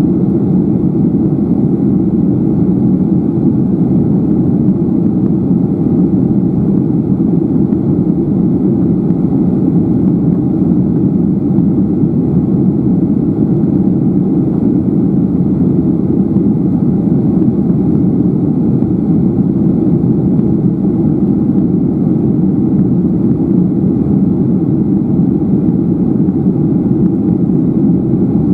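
Steady cabin noise inside a Garuda Indonesia Boeing 737-800 climbing after takeoff: an even, low rumble of the jet engines and airflow that does not change.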